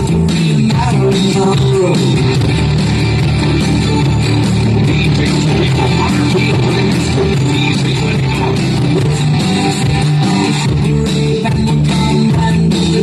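Loud remixed dance music played back over a sound system, with heavy bass, guitar and a sung vocal line.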